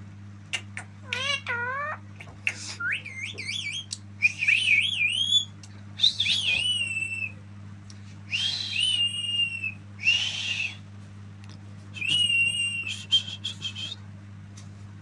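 Pet parrot giving a string of whistled calls: rising glides and warbling, wavering notes, some with a harsh, squawky edge, in bursts of about a second with short pauses between. A steady low electrical hum runs underneath.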